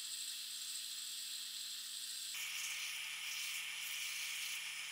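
Combination belt and disc sander running as a phenolic knife handle is sanded: a steady motor whir under a high abrasive hiss. About two seconds in the sound changes abruptly, from sanding on the disc to sanding on the belt.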